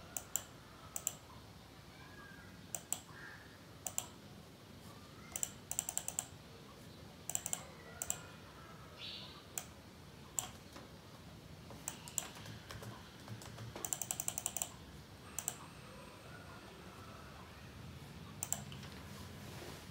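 Computer keyboard typing in short, irregular bursts of quick keystrokes, with single clicks in between.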